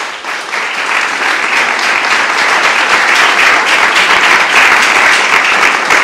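Audience applauding: dense, many-handed clapping that swells over the first second and then holds steady and loud.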